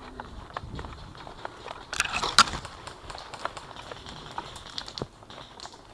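Crackling and rustling of twigs and leaves on a forest floor, with many small snaps and one louder, sharp crack a little over two seconds in.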